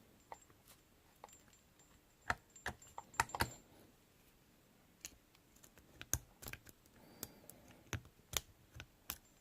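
Small, irregular metallic clicks and taps of lock picks and a tension tool working in a 60 mm Mindy padlock's pagoda-style core, in two loose clusters a couple of seconds in and again from about five seconds on.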